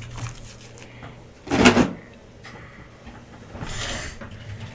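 Trading cards and packs being handled on a table: a loud, sudden knock-like rustle about a second and a half in, then a shorter, softer rustle near the end.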